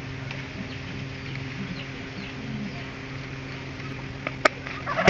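Farmyard ambience: birds chirping and chickens clucking over a steady low hum. About four seconds in come two sharp knocks close together.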